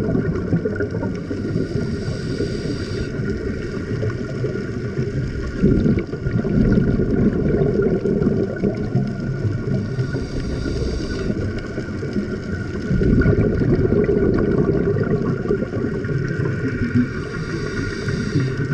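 Scuba regulator breathing underwater: three short hissing inhalations about seven or eight seconds apart, each followed by a long bubbling gush of exhaled air.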